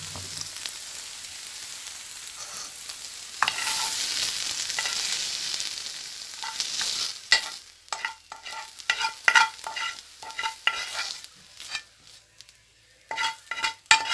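Cooked chicken pieces sizzling in a non-stick frying pan, the hiss growing louder about three seconds in. From about halfway a spoon scrapes and clinks repeatedly against the pan and a ceramic bowl as the chicken is spooned out of the pan, with a short pause before a few more clinks near the end.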